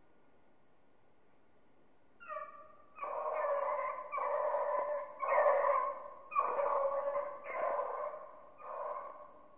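A beagle baying on a rabbit's trail: a short rising yelp a little after two seconds in, then six long drawn-out bawls about a second apart.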